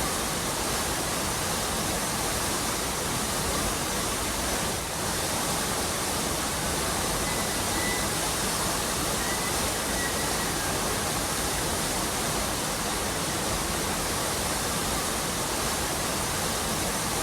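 Waterfall pouring over a rocky cliff face: a steady, even rush of falling water.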